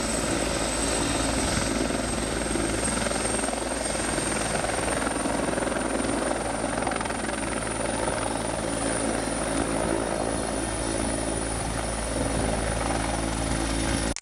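Helicopter lifting off into a low hover: the turbine engine and main rotor run steadily at high power. A high turbine whine creeps slightly up in pitch over a heavy rotor rumble.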